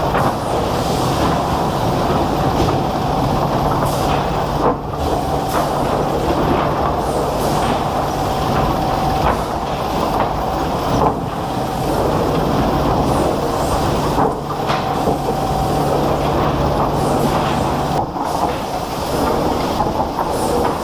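Wood-processing machinery running: a steady mechanical din with a constant hum, changing abruptly a few times.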